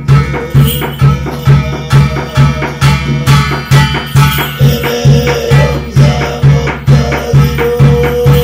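Korean shamanic gut ritual music: a drum beating steadily about twice a second under jingling, rattling percussion, with a held pitched tone coming in about halfway through and held longer near the end.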